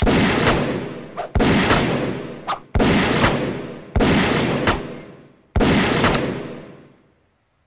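Revolver shots, five of them about a second and a half apart, each dying away in a long echoing tail, with lighter clicks in between.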